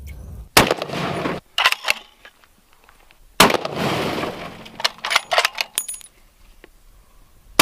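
Two rifle shots from a scoped rifle, about three seconds apart, each a sharp crack trailing off in about a second of echo, with a few lighter clicks and knocks between them.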